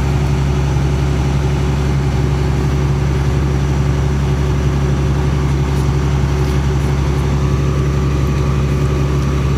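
Tractor engine running steadily at a constant speed, a continuous low drone.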